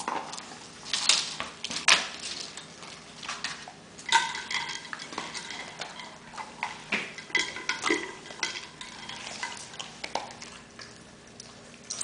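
Irregular clattering and knocks as a beagle noses a tennis ball against a plastic water bowl and paper plates on a tile floor, with a few short ringing clinks.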